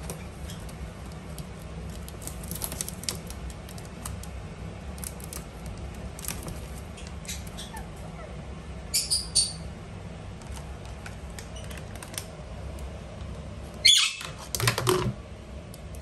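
Indian ringneck parakeets on a plastic basket of packets: scattered light rustles and clicks over a steady low hum, two short high calls about nine seconds in, and louder short calls near the end.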